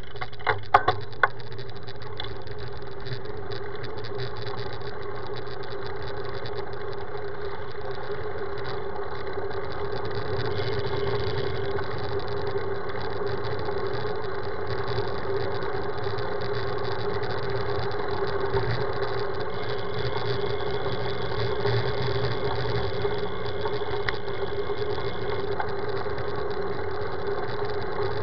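Steady road and wind noise from a road bicycle in motion, picked up by a camera mounted on the bike, with a few sharp clicks about a second in.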